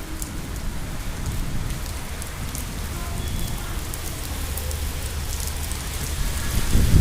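Steady rain falling, with scattered sharp drip ticks over an even hiss; a low rumble swells near the end.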